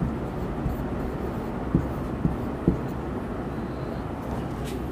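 Marker writing on a whiteboard: soft strokes with a few light taps about two to three seconds in, over a steady low background hum.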